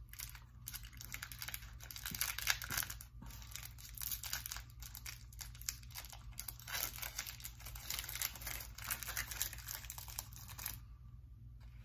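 Plastic candy bar wrapper crinkling and tearing as it is opened by hand, a dense run of crackles that stops near the end.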